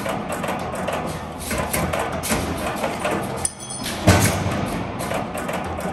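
Background music with percussive hits and sustained low tones, with a strong accent about four seconds in.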